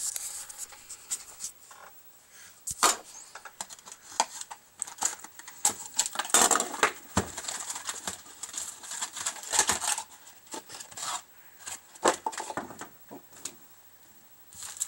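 Hands opening a box of hockey trading cards and handling the card packs: irregular crinkling, rustling and clicks of wrapper, cardboard and foil packs.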